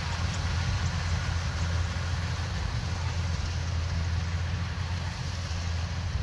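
Kubota DC-105X combine harvester running steadily at work, a constant low engine drone under an even rushing noise from the machine.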